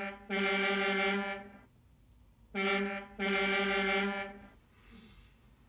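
Truck air-horn sound effect played by an Arduino-driven scale model truck's sound module: a short blast, then a longer blast of about a second and a half, both at one steady pitch. The pair is played twice.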